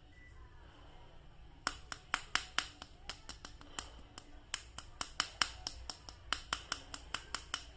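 A quick, irregular series of sharp clicks and taps from a plastic action figure being handled, starting about a second and a half in.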